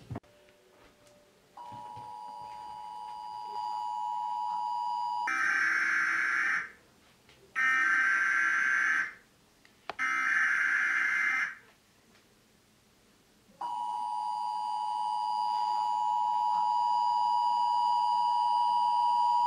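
Emergency broadcast alert signal: a steady two-note alert tone, then three short harsh buzzing data bursts about a second and a half apart, then the two-note tone again, held long, in the style of the US Emergency Alert System.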